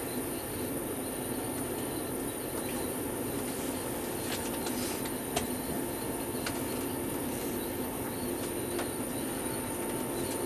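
Inside the cab of an Alstom Coradia Meridian ETR425 electric train under way: steady running noise with a constant hum, and a single sharp click about five seconds in.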